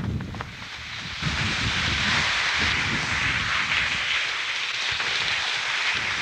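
Wind rushing over the camera's microphone during a wind-powered ski run under an UpSki canopy: low buffeting for about a second, then a steady loud hiss of wind and snow.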